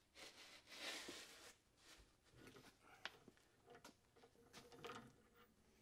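Near silence with faint hand-tool handling: a soft rustle about a second in, then a light metal click and a few faint clicks later as a ratchet and socket are fitted onto the oil rail nipple.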